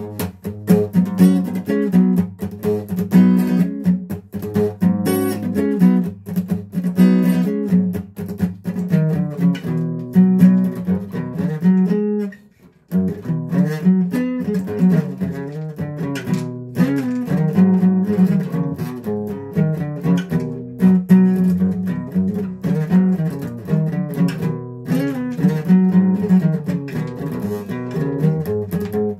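Guitar being played, a continuous run of picked notes and chords that stops briefly about twelve seconds in, then carries on.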